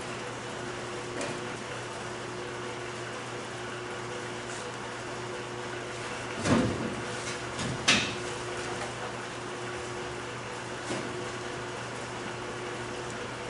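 Scattered knocks and clunks from someone working around the old Ford pickup, the loudest about six and a half and eight seconds in, over a steady low hum.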